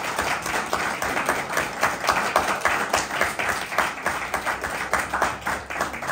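A small group of people applauding: many hands clapping quickly and unevenly.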